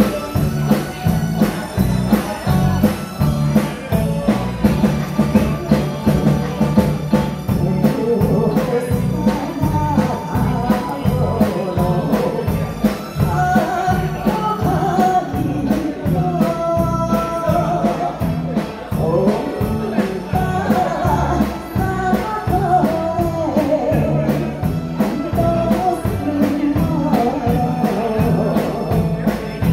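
Live band with drum kit, electric guitar and keyboard playing a song with a steady beat. A woman's lead vocal comes in about ten seconds in and carries on over the band.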